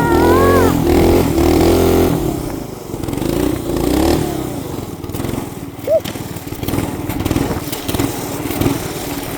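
A 212cc single-cylinder four-stroke engine running hard under throttle, its pitch wavering. About two seconds in it eases off to a quieter, rougher running for the rest.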